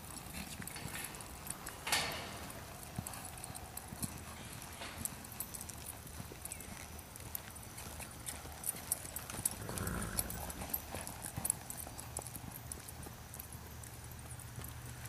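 Filly's hooves beating on arena sand at a lope, an irregular run of soft hoofbeats. A sudden louder burst of noise about two seconds in and a low rumble near ten seconds.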